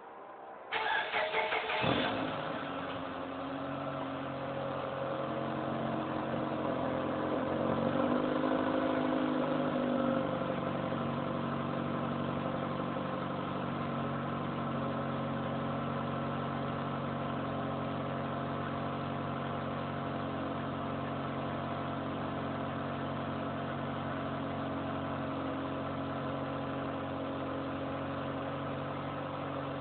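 2006 Mitsubishi Lancer Ralliart's 2.4-litre four-cylinder engine on its stock exhaust, cranked by the starter and catching within about a second, then settling into idle. Its speed rises a little and falls back between about six and ten seconds in, then it idles steadily.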